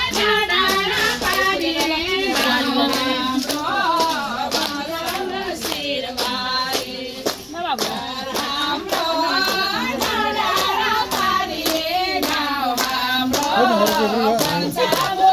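A group of women singing a song together, keeping time with steady rhythmic hand clapping.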